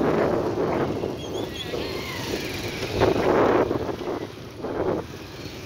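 Wind buffeting the microphone in gusts, loudest about three seconds in, over the engine of a motorcycle riding past close by.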